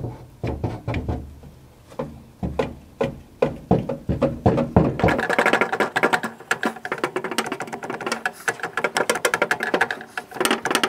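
Plastic-faced mallet tapping a new crankshaft pulley oil seal into the engine case of a 1955 Porsche 356 Pre-A Speedster. The taps come one by one at first. About halfway in they turn into a quick run of light, rapid taps.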